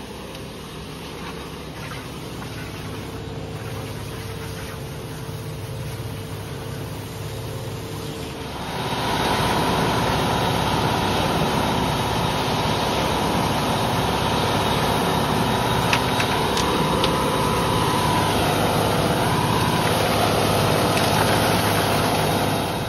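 Front-discharge concrete mixer truck's diesel engine running steadily, getting clearly louder about nine seconds in, with a steady whine over it through much of the louder part.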